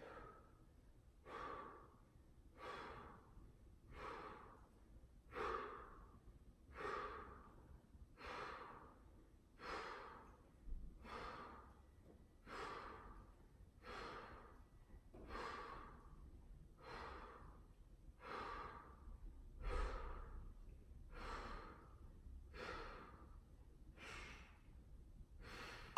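A man breathing hard under exertion while pressing dumbbells, with a forceful breath about every second and a half in a steady rhythm.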